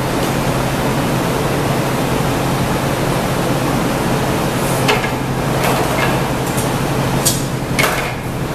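Steady roar of a glass studio's fans and furnace. In the second half come a handful of sharp metal clicks and clinks as tools strike the steel pipes at the bench.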